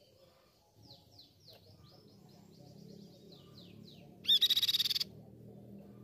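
Crescent-chested babbler singing: a run of quick, thin descending notes, then, about four seconds in, a short loud trill that is the loudest sound. A faint low background rumble lies under it.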